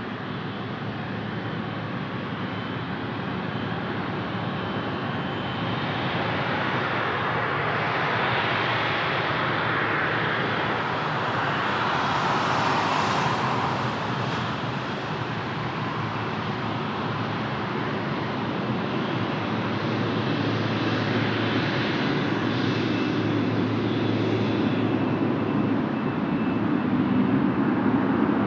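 Jet engines of a Boeing 777 freighter, its twin GE90 turbofans, giving a continuous rushing rumble. The sound swells to a peak about halfway through, eases slightly, then builds again with a deeper rumble near the end.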